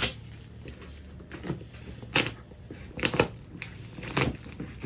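Parcel packaging being torn and crinkled open by hand: short sharp crackling rips, about one a second.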